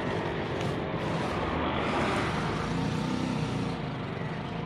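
Dawlance manual-dial microwave oven running on a one-minute timer to heat roti: a steady hum.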